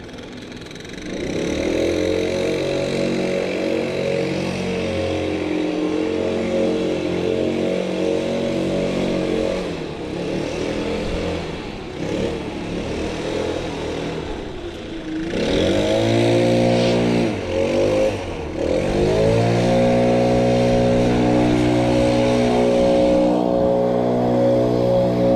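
Small gasoline engine revving up from idle about a second in and running at high speed, easing off partway through, then revving up again with two brief dips before settling at a steady high speed.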